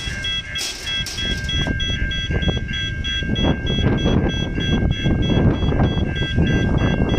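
Level crossing warning bells ringing in a rapid, even pulse of about four strokes a second, over a low rumble that grows louder from about three seconds in.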